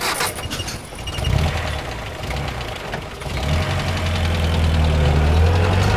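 A motor vehicle's engine running: a low steady drone that comes in about a second in, dips, then returns and grows louder from about three and a half seconds in.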